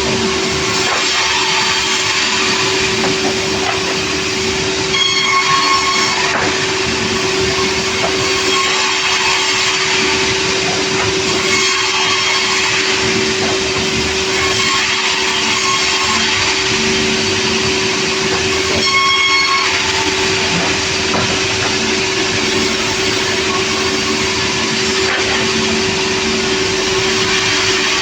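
Sawmill machinery running steadily under load with a constant hum, twice giving a brief high-pitched squeal: about five seconds in and again just before twenty seconds.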